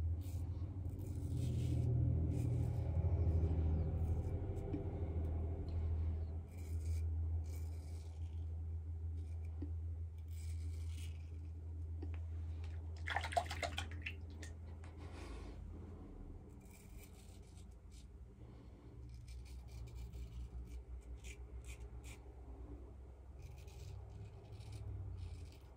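Vintage Gillette Old Type open-comb safety razor scraping through lathered stubble, a short rasping stroke every second or two, over a steady low hum.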